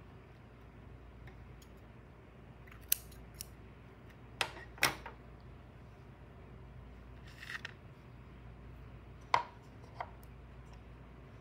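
Scissors cutting yarn: a few sharp snips and clicks about three to five seconds in, then a couple more short clicks later as the scissors and a plastic glue cup are handled on the table.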